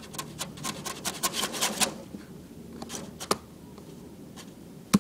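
A quick run of scratching and rubbing strokes from a hand close to the microphone, lasting about two seconds, then two sharp clicks a little past the middle.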